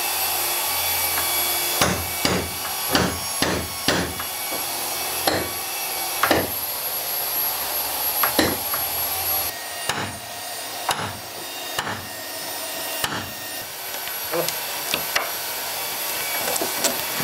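Irregular knocks and taps of wood and tools, a dozen or so sharp strikes bunched in the first two thirds and fewer near the end, as a purpleheart wood handrail is fitted and clamped in place with bar clamps and a screwdriver. A steady hiss sits underneath and eases off about halfway through.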